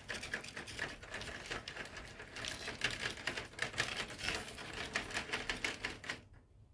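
HO scale model train rolling past close by, its wheels and cars clicking and rattling rapidly over the sectional track. The clatter stops suddenly about six seconds in.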